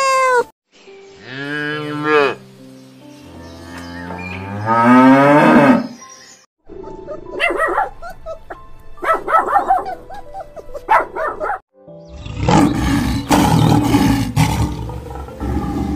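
A run of different animal calls edited back to back: a kitten's meow cut off just after the start, two long drawn-out calls, the second rising in pitch, then short yips from a puppy between about 7 and 11 seconds, and a lion's rough growling roar for about three seconds near the end.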